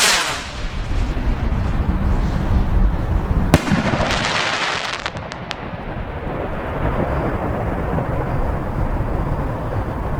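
A firework rocket's launch whoosh trailing off, then about three and a half seconds in a single sharp bang as a 3-inch ball-head rocket shell bursts, followed by a short hiss and a few crackling pops. A steady low rumble runs underneath.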